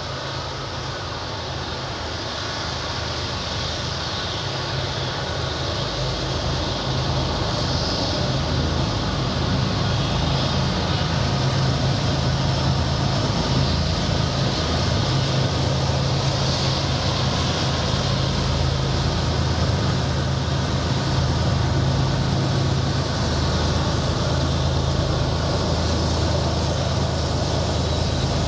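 BNSF diesel freight locomotives approaching with a steady low engine drone, growing louder over the first dozen seconds and then holding.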